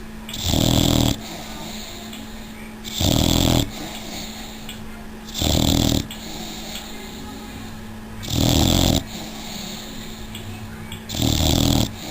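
Six-month-old Old English Bulldog puppy snoring in her sleep: five snores at an even pace, one about every two and a half seconds, each much louder than the pauses between. A faint steady hum runs underneath.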